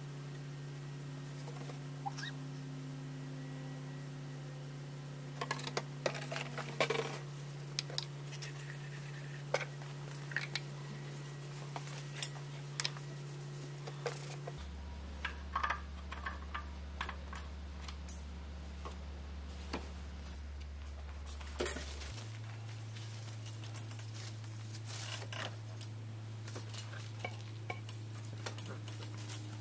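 Scattered light clicks and clatters of hands working in an engine bay, handling a plastic oil jug, funnel, filler cap and rag, over a low steady hum that shifts pitch twice.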